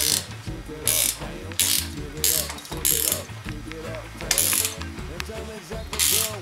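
A ratchet tool clicking in about seven short strokes as a bicycle saddle's seatpost clamp is tightened, over background music.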